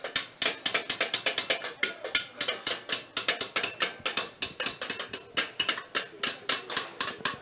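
Small hand hammers tapping on copper in a quick, uneven patter of several strikes a second: coppersmiths beating and chasing copper pieces by hand, with two workers' strokes overlapping.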